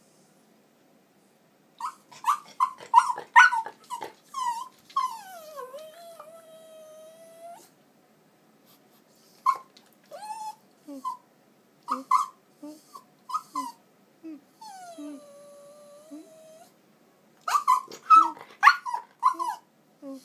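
German Spitz Mittel whining in a begging way, asking to be taken out. From about two seconds in there are clusters of short, high whines with short low grunts between them, and twice a long drawn-out whine that slides down in pitch and then holds.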